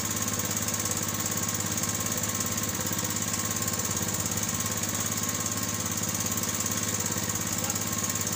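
A small outrigger fishing boat's engine running steadily at an even speed.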